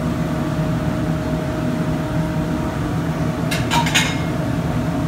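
Steady hum of kitchen ventilation and gas burners under an omelette cooking on low heat. About three and a half seconds in comes a short run of clicks and rustles as slices of cheddar are laid on.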